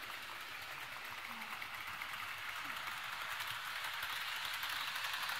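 HO scale model train running on the layout's track: a steady rattling whir of wheels and motor that slowly grows louder as the train comes closer.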